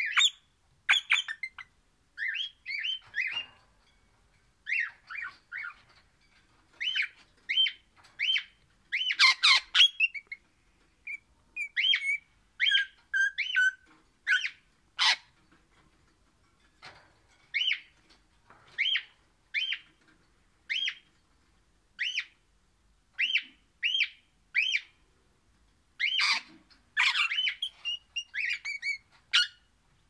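A crimson rosella (Pennant's parakeet) whistling a long series of short, clear notes, mostly about one a second. The run is broken by a few louder, harsher squawks about a third of the way in and again near the end.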